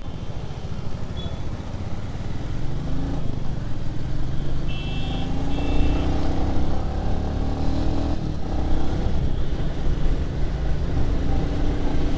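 Motorcycle riding in city traffic: a steady low engine-and-road rumble with engine pitch rising and falling, and two short high beeps about five seconds in.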